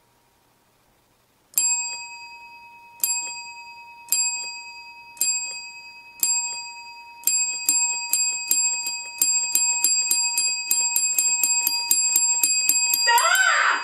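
Chrome desk bell struck again and again, slowly at first, about once a second, then faster and faster until it rings in a rapid flurry. Near the end a short sound that swoops up and down in pitch joins in.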